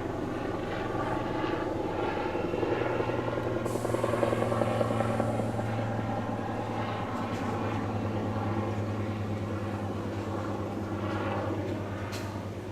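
Tobu Railway electric commuter train pulling out of the station: a steady drone of its motors and wheels as it moves off, with a brief high hiss about four seconds in and a sharp click near the end.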